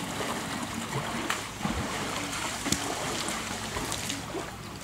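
Water splashing and lapping around an elephant standing in a shallow river, its trunk stirring the water.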